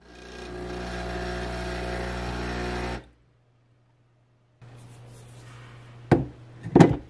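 A steady machine hum runs for about three seconds and cuts off. After a short silence a fainter hum returns, and two sharp metallic knocks near the end come from the portafilter being fitted and twisted into the group head of a Breville espresso machine.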